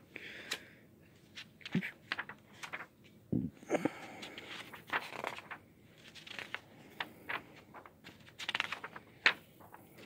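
Paper pages of a comic book being turned and smoothed by hand: a string of short paper rustles and flaps, in small clusters and busiest near the end.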